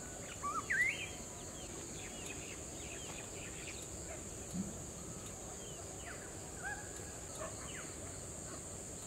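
Countryside ambience: several birds chirping and calling, loudest about a second in, over a steady high insect drone. A short low sound about four and a half seconds in.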